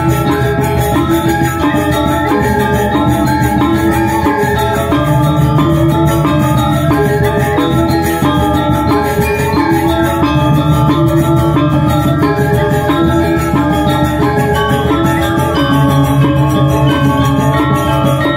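Balinese gamelan ensemble playing a tabuh: bronze metallophones struck with mallets in many quick ringing notes, over a low layer that swells in and out.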